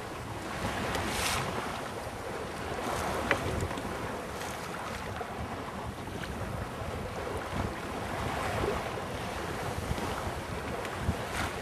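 Wind buffeting the microphone over the wash of water along a sailboat's hull, rising and falling in surges.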